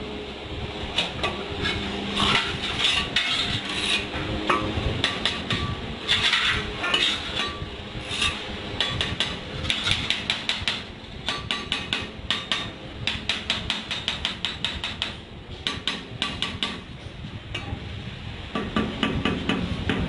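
Repeated hammer-like tapping and knocking on tile work. The strikes are irregular at first, with a quicker run of light taps in the middle.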